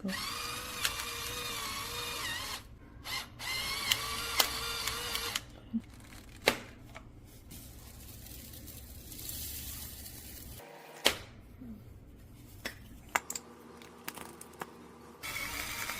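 Small battery-powered motor of an electric pepper grinder whirring in three short bursts, about two seconds each: two near the start and one near the end. Sharp clicks of handling come between the runs.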